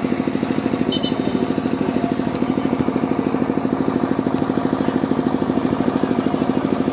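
A small engine running steadily at idle with an even, fast pulse, about fourteen beats a second.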